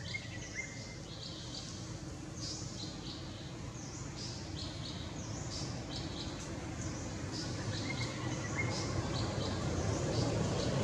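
Birds chirping with many short, high calls over a steady low rumble that grows louder near the end.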